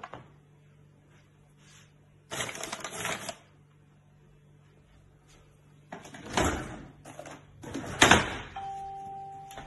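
Kitchen handling noise: a short rustle as flour is scattered over the countertop, then clattering knocks from a lower kitchen cabinet or drawer, the loudest near the end, followed by a brief steady squeak. A faint steady hum sits underneath.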